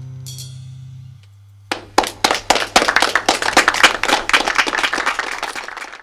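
The last held chord of a live keyboard-and-bass performance ringing out and fading, with a brief high shimmer just after the start. From just under two seconds in, a few people clap in quick, uneven claps.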